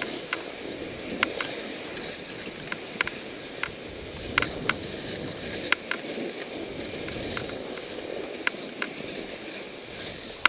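Skis sliding and scraping over chunky, cut-up snow: a steady rushing noise broken by sharp, irregular clicks.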